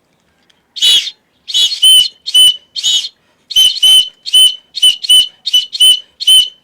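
A hand whistle blown in a quick series of short, loud, high-pitched toots, about a dozen, all on the same steady note, starting about a second in.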